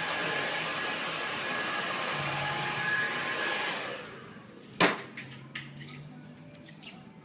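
Hand-held hair dryer blowing steadily with a thin whine, then switched off about four seconds in, its pitch falling as it winds down. A sharp knock, the loudest sound, comes about a second later, followed by a few faint clicks.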